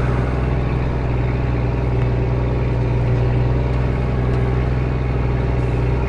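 New Holland T7060 tractor's six-cylinder diesel running steadily under load while pulling a reversible plough through the ground: a low, even engine drone that holds the same pitch throughout.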